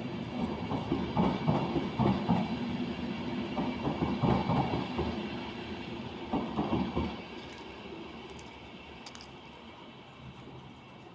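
A train passing on the rails, its wheels knocking over the rail joints in repeated groups. The sound fades away after about seven seconds.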